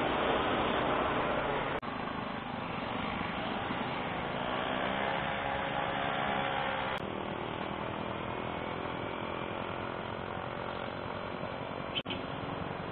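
Motorcycle riding in traffic: engine running with heavy wind rush on the handlebar camera's microphone, the engine pitch shifting as it slows. The sound changes abruptly about 2 and 7 seconds in, and from about 7 seconds on the engine runs quieter and steadier, idling at a stop.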